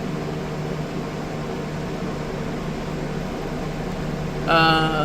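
Steady mechanical hum, like a room fan or air conditioner running. A short pitched sound cuts in about four and a half seconds in.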